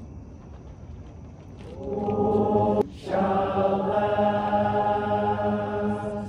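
A large group of voices singing long held notes together in a chord, quiet at first and swelling about two seconds in, with a short break just before three seconds before the chord is held again.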